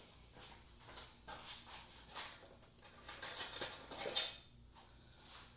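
Drill bits being handled and sorted: scattered light metallic clicks and rattles, with one brief louder rustle about four seconds in.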